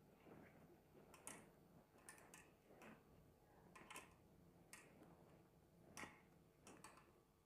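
Faint, irregular clicks and rustling of flat plastic basket-wire strips being pulled through and tightened into knots by hand.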